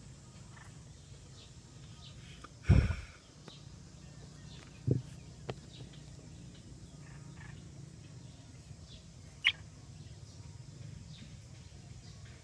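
Faint, short, high peeps of small birds scattered throughout, with one sharper cheep about nine seconds in. A loud thump a few seconds in and a smaller knock about two seconds later, over a steady low hum.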